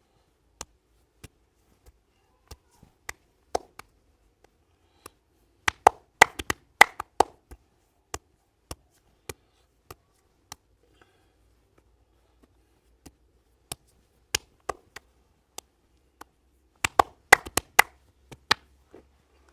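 Sharp, percussive taps from a masseur's hands during an Indian head massage. Single strikes come about every half second to a second, with quick flurries about a third of the way in and again near the end.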